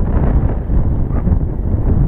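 Wind buffeting the microphone: a loud, gusty rumble that rises and falls unevenly.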